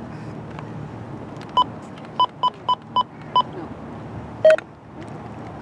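A run of six short electronic beeps at one pitch, unevenly spaced like buttons being pressed, then one louder, lower beep, over a steady low rumble.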